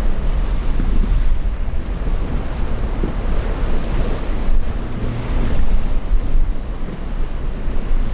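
Strong wind buffeting the microphone over the rush of breaking surf, a steady heavy low rumble with no clear engine note.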